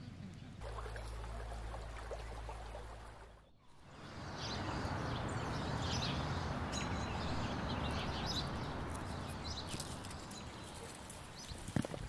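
Outdoor field ambience: a steady noisy haze with small birds chirping now and then. A low steady hum runs through the first few seconds, and there is a single sharp click near the end.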